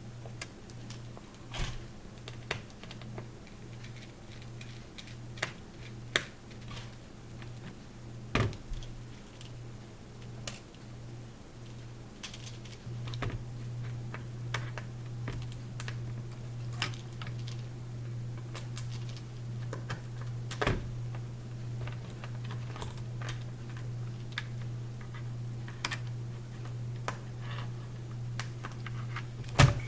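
Irregular small clicks and taps of plastic parts and tiny screws being handled while working the screen out of a laptop lid, with one sharp click near the end. A steady low hum runs underneath, pulsing for the first dozen seconds and then steady.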